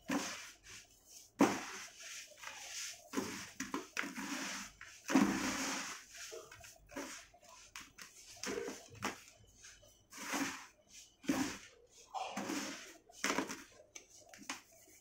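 Hands scooping, squeezing and letting fall a dry, gritty sand-and-cement mix in a plastic tub: irregular crunching and rustling pours of grit, one after another, the loudest about a second and a half in and again about five seconds in.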